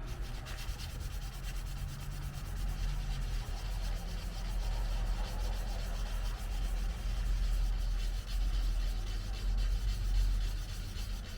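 Fine-grit sandpaper rubbed by hand over a car's painted body panel in continuous scraping strokes, knocking down paint runs and deep imperfections before primer.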